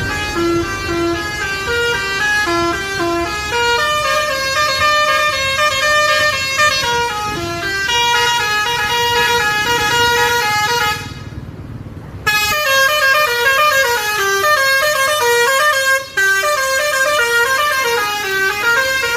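Telolet-style musical bus horn playing a fast tune of short notes that step up and down in pitch. It breaks off about eleven seconds in, and a second horn tune starts a second later.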